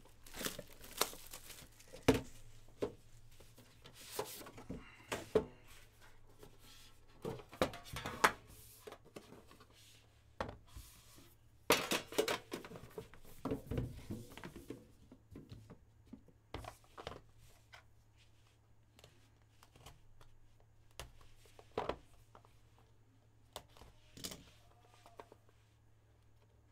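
Shrink wrap being torn and crinkled off sealed Panini Immaculate trading card hobby boxes, with scattered knocks and taps as the boxes are handled on a table. The rustling comes in short spells, busiest in the first half.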